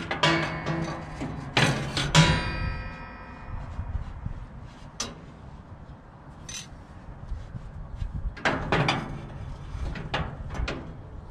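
Metal parts of a gas grill clanking and knocking as they are handled during disassembly. The loudest strike, about two seconds in, leaves a metallic ring that dies away over a second or so; scattered knocks follow, with another cluster of clanks about eight seconds in.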